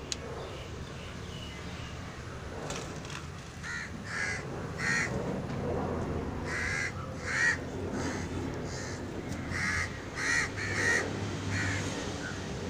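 Crow cawing: about ten short, harsh caws in groups of two or three, starting a few seconds in, over a steady low background hum.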